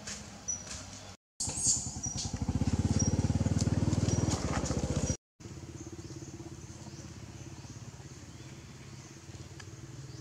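A motorcycle engine running close by, loud and fast-pulsing from about a second and a half in until about five seconds. A steadier, quieter engine hum carries on after. The sound drops out completely twice for a moment.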